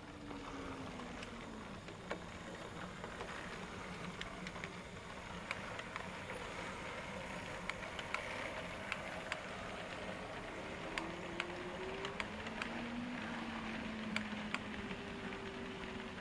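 OO gauge model train running along the track: the locomotive's small electric motor whines, its pitch sliding up and down as the speed changes, over a steady rumble of wheels on rail, with sharp clicks as the wheels cross rail joints.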